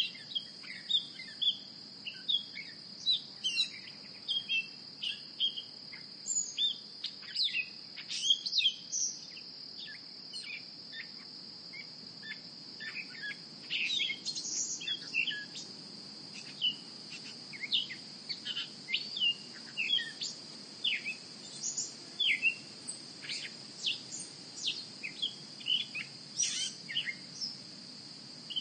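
Many birds chirping and calling in short, quick notes throughout, over a steady high-pitched insect drone.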